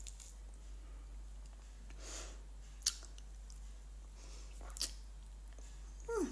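Quiet eating sounds: a metal spoon scooping icy shaved watermelon from a glass bowl, and chewing, with two short sharp clicks. Near the end comes a brief falling hum of the voice.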